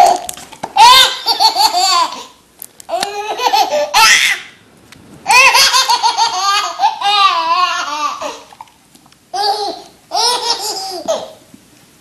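A baby laughing hard in about five fits of high-pitched laughter, separated by short breaks, with the longest fit lasting about three seconds. The laughter stops shortly before the end.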